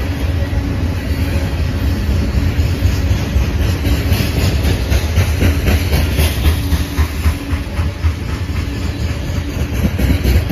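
Empty coal cars of a long freight train rolling past: a steady low rumble of steel wheels on rail, with rapid clicking over the rail joints through the middle of the passage.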